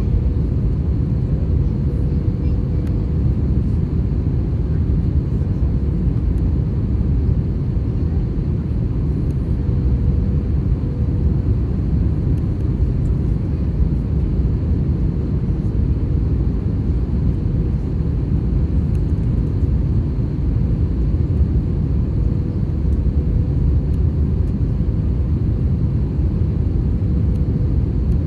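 Steady low rumble of an Airbus A321 airliner's engines and airflow heard from inside the cabin, with a faint steady hum on top.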